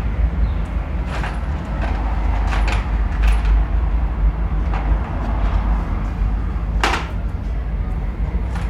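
Generator engine running steadily with a low hum, with several sharp clicks and knocks over it. The loudest knock is about seven seconds in.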